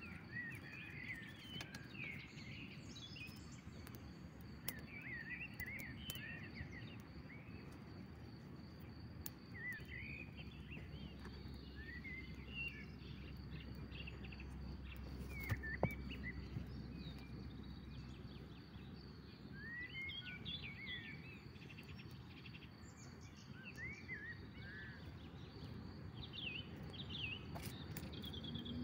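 Outdoor ambience: birds chirping in short rising and falling calls over a steady high insect trill, with a low rumble underneath and a few sharp clicks, the loudest about halfway through.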